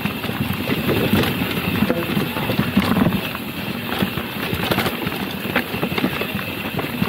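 Mountain bike riding fast down a rough, dusty dirt trail: tyres crunching over loose gravel, with a steady clatter of rapid knocks and rattles from the bike.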